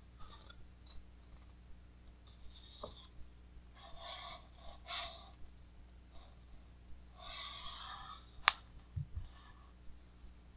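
Pages of a large-format hardcover book being turned and smoothed flat by hand: soft paper rustles, and a single sharp click about eight and a half seconds in.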